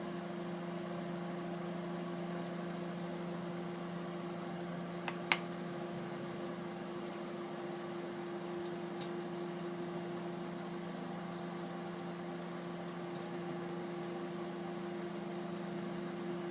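Microwave oven running on full power with a steady hum, heating popcorn kernels that have not yet started to pop. One sharp click about five seconds in, and a fainter one a few seconds later.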